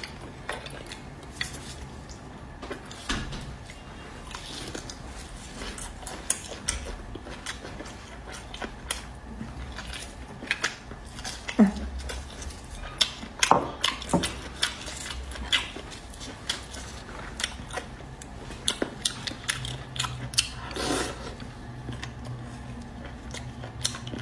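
Metal spoon scraping and clicking against the inside of a braised beef bone as the marrow is dug out: irregular clicks and scrapes, busiest in the middle.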